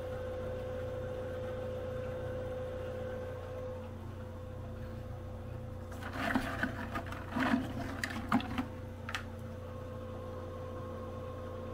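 A cluster of sharp clicks and knocks, several hard strikes over about three seconds starting around halfway in: rocks being handled and knocked against each other or set down. A steady hum runs underneath.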